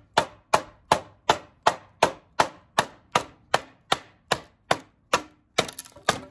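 Work Tuff Nomad field knife chopping into an old wooden 2x4, a sharp chop about three times a second, ending in a quick flurry of knocks near the end.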